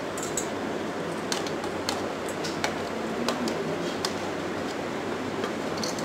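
Steel spoon scraping and tapping on a plate and bowl as chopped onion and spices are pushed into crumbled paneer: a scatter of light clicks over a steady background hiss.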